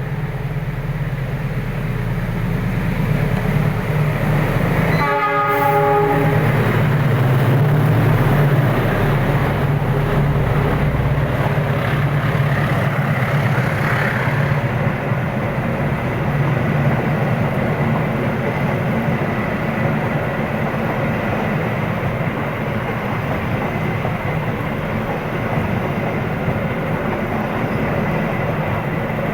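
KA Lodaya passenger train passing close by, its diesel locomotive and coaches making a loud, steady rumble on the rails. The locomotive's horn sounds one short blast about five seconds in.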